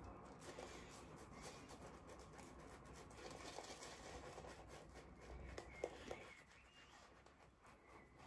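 Faint swishing of a shaving brush being worked over the face, building shaving-soap lather, with a few soft clicks a little past the middle.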